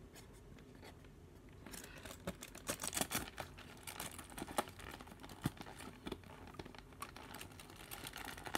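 Crinkling and sharp little clicks of an advent calendar's cardboard and thin plastic chocolate tray as fingers pry a chocolate out of its window, starting about two seconds in.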